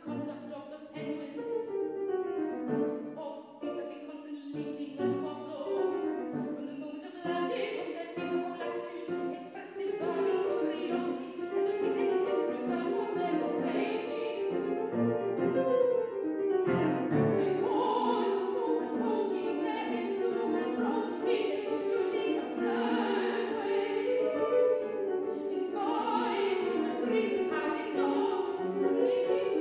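Classical soprano singing an art song with piano accompaniment, growing louder about a third of the way through.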